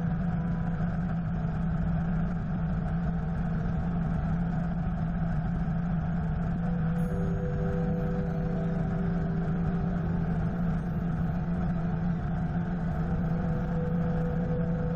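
Helicopter in flight heard through a GoPro mounted on its nose: a steady drone of engine and rotor with rushing air, unchanging throughout.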